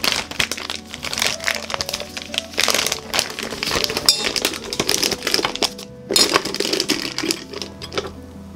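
Thin disposable plastic piping bag crinkling and crackling loudly as it is handled, fitted with a metal tip and opened out in a glass mug, with a brief pause about six seconds in. Soft background music plays underneath.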